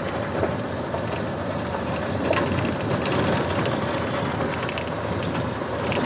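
A car driving, heard from inside the cabin: steady tyre and road noise with a few rattles and clicks, one about two seconds in and another near the end.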